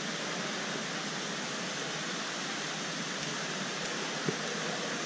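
Steady hissing background noise of a large indoor shopping mall, with one short tap about four seconds in.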